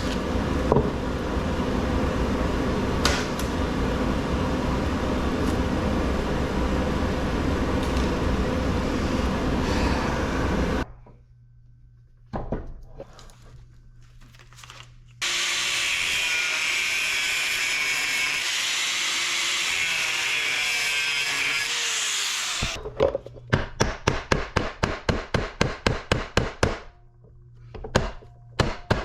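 Angle grinder cutting into a scrap electric motor for about ten seconds, stopping, then cutting again for several seconds. Near the end comes a quick series of hammer blows, about three to four a second, then a few more knocks.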